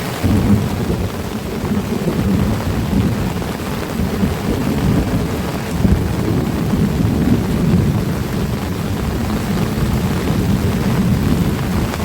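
Heavy rain falling, with a loud low rumble that surges up and down throughout.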